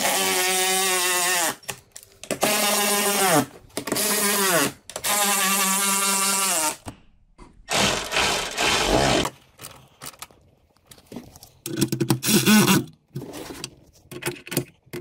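Cordless electric ratchet driving the dome light's mounting bolt in short bursts: a steady motor whine that falls in pitch as each run stops, about four times. It is followed by a few shorter, rougher runs.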